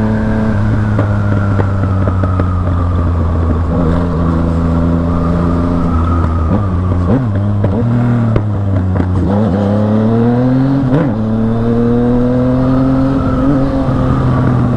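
Yamaha MT-09's inline three-cylinder engine under way, its steady note broken by several brief dips in the revs around the middle, then climbing and holding near the end. The rider says the engine is running a bit rough, stumbling as soon as it is touched, and needs adjusting.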